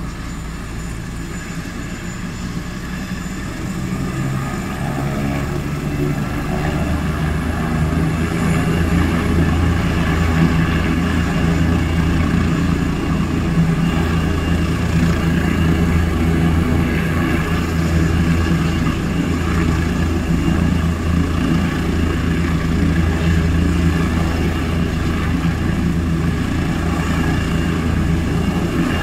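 Air ambulance helicopter running on the ground with its rotor turning before take-off. It is a deep, steady hum, heard from inside a car, that grows louder from about four seconds in and then holds steady.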